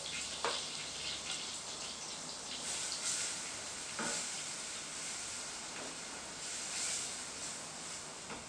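Flour sizzling as it is stirred in a hot stainless steel saucepan, the first step of a dark mushroom sauce. A spoon scrapes and knocks against the pan a few times.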